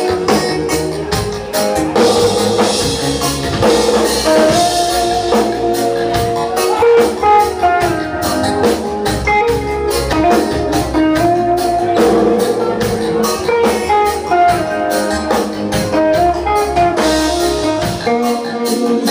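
Reggae band playing live: electric guitars and a drum kit in a steady groove.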